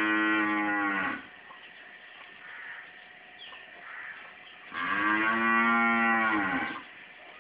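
A cow mooing twice: a call already sounding at the start that ends about a second in, and a second long moo of about two seconds beginning near five seconds in, each arching slightly in pitch.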